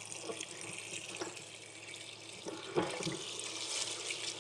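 Kitchen tap running in a steady stream into a steel pot of shredded cabbage as a hand works the cabbage under the water, with a couple of light knocks a little past halfway.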